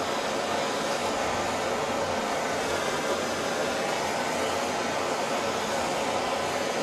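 BernzOmatic handheld gas torch burning with a steady hiss as its flame heats a copper-and-brass joint for silver brazing.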